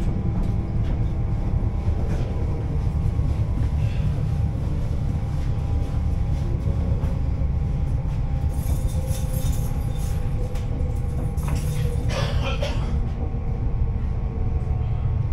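Elizabeth Line Class 345 electric train running on the rails, heard from inside the carriage as a steady low rumble. Short bursts of high hiss come about nine and twelve seconds in.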